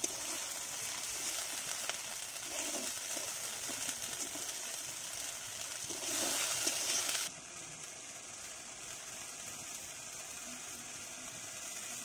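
Spiced tomato masala sizzling in a karai just after sour yogurt has been added, stirred with a metal spatula. The sizzle swells about six seconds in, then drops off abruptly to a quieter steady hiss.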